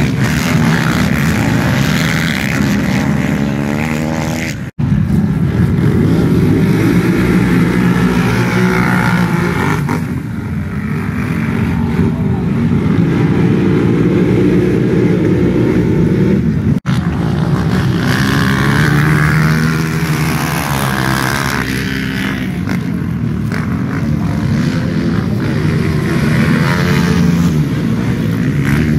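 Several racing ATV (quad) engines revving and running hard, their pitch rising and falling as they accelerate and shift. The sound drops out for an instant twice, about five seconds in and again about seventeen seconds in.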